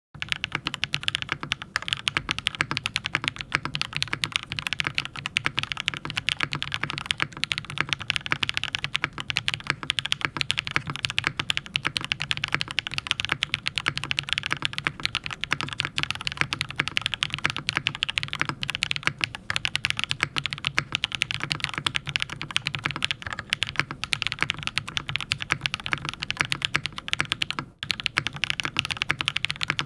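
Fast, continuous typing on a PolyWorks Ahgase custom mechanical keyboard with Singularity switches in an aluminum plate and GMK Olivia keycaps, a dense stream of key clicks with a brief pause about 28 seconds in.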